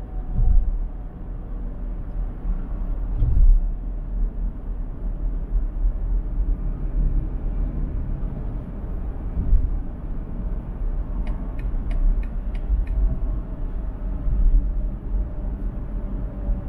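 Road noise of a car driving on a freeway: a steady low rumble with a few heavier low surges. Near the end comes a short run of about six light ticks.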